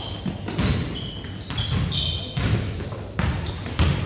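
A basketball bouncing on a hardwood gym floor, several sharp knocks a second or so apart, mixed with short high squeaks from players' sneakers on the court.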